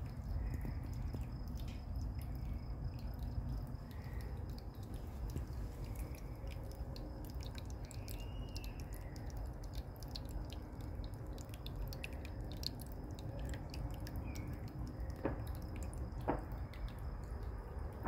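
Summer-night outdoor ambience: a steady, high insect trill runs over a low, steady rumble, with scattered faint clicks and a brief faint call about eight seconds in.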